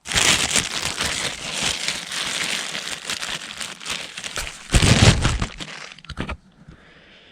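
Plastic bread bag filled with baking soda crinkling as it is handled, with a louder, deeper rustle about five seconds in. It stops a little after six seconds.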